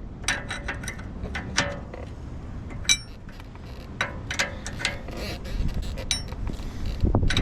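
Hand tools on the rear wishbone bolts: scattered metallic clicks and clinks, one of them ringing briefly about three seconds in.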